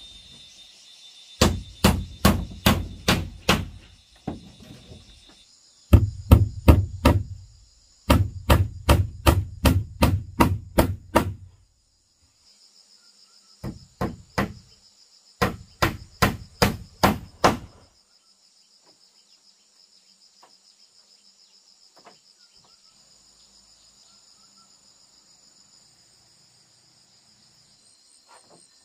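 Hammer striking nails into wooden wall planks in several quick runs of blows, about three a second, which stop after about eighteen seconds. Insects buzz steadily and high-pitched throughout.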